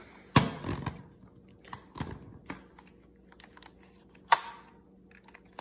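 Scattered sharp plastic clicks and knocks from handling a toy RC truck and its pistol-grip transmitter, the loudest about half a second in and another about four seconds in.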